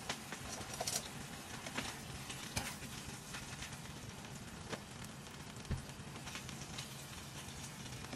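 Chicken breasts sizzling in hot olive oil in a frying pan: a faint, even crackle with scattered sharper pops and ticks as the pieces are turned over with metal tongs.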